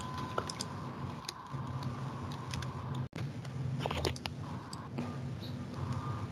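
Steady low background hum with a faint tone, picked up over a video-call microphone, with scattered light clicks, a small cluster of them about four seconds in.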